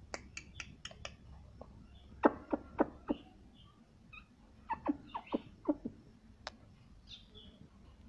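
Male rose-ringed parakeet making soft, short clicks and chirps, with small clusters about two seconds in and again about five seconds in.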